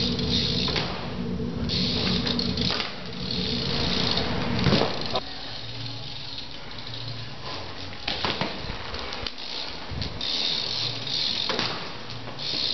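BMX bike rolling on tarmac, with a few sharp knocks, about 5, 8, 10 and 11 seconds in, as the bike comes down or hits the ground.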